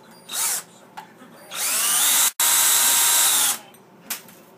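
Cordless drill spinning a wire-twisting hook to twist several wires clamped in a vise. A short blip of the trigger comes first. Then the motor winds up with a rising whine and runs steadily for about two seconds, with a split-second dropout, before stopping.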